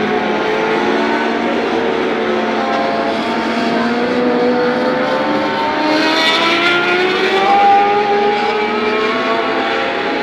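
Several racing motorcycle engines running at high revs on a race circuit, their notes overlapping and repeatedly climbing in pitch as the bikes accelerate, with the loudest rising whine about six to eight seconds in.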